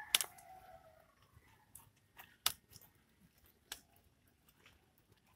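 Sharp snaps of stems being broken off a papaya plant by hand. The loudest comes just after the start, then several more a second or so apart. The tail of a rooster's crow fades out in the first half-second.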